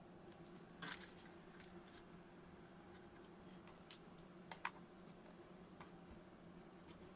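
Faint clicks over a low steady hum: a short scrape about a second in, then a single click and a quick pair of clicks near the middle.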